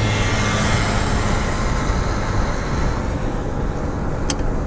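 Steady road, wind and engine noise inside a moving car's cabin. A low hum fades out about halfway through, and there is a single short click near the end.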